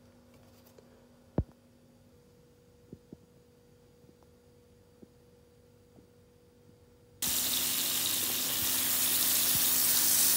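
A quiet stretch with a faint hum and a few light clicks and taps, the sharpest about a second and a half in. About seven seconds in, a loud, steady sizzling starts abruptly: spaghetti frying in a hot pan.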